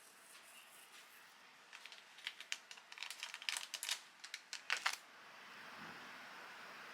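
A quick, irregular run of light clicks and taps for about three seconds, then a steady hiss.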